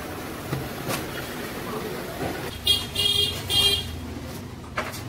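Vehicle horn honking three short times in quick succession over a steady rumble of road traffic, with a couple of sharp knocks.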